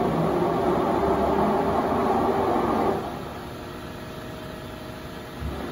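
Loud, steady rumble of heavy machinery in a machine shop. It drops to a quieter steady hum about three seconds in.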